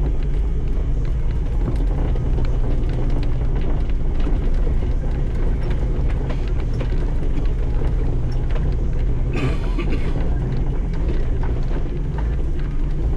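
Side-by-side UTV engine running steadily while driving along a trail, with a short burst of noise about nine and a half seconds in.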